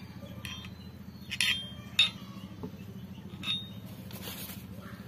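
A screwdriver clinking against the steel crankshaft and the aluminium engine block, about four sharp metal clinks with a short ring, as the crankshaft is levered to check its end play (thrust clearance). A steady low hum runs underneath.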